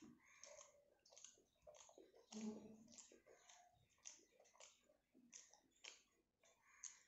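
Faint, close-up chewing and wet mouth smacks of someone eating rice with curry: irregular soft clicks and squelches, a few every second.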